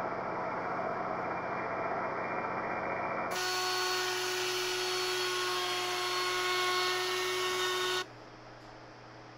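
Black & Decker handheld router with a round-over bit cutting along the corner of a wooden mast. At first it is slowed down, low and muffled, then about three seconds in it becomes a steady high whine with wood chips being cut, which stops abruptly near the end.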